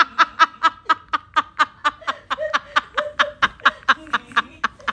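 A person laughing in quick, even, high-pitched pulses, about five a second, that stop just before the end.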